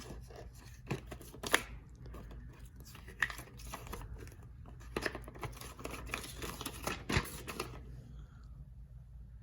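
Packaging being handled while a keypad deadbolt is unboxed: irregular rustling and crinkling of paper and plastic, with a few light knocks, quietening near the end.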